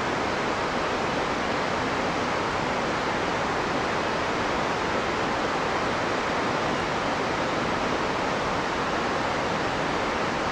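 Steady, unbroken rushing of a tall waterfall, about 80 m high.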